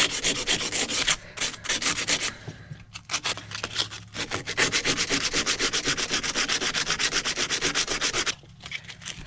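Sandpaper rubbed by hand on the steel of a pipe wrench in quick back-and-forth strokes, several a second. The strokes pause briefly about a second in, around three seconds in, and shortly before the end.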